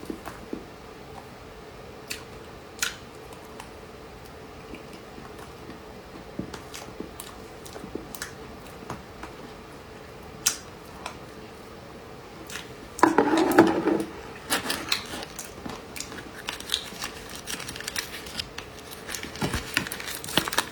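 Light, scattered clicks and taps of utensils and plastic dessert containers being handled during eating, over a faint steady hum. About two-thirds through, a louder burst of handling noise.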